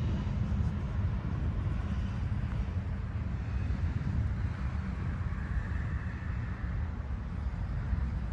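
Wind buffeting the microphone: an irregular low rumble.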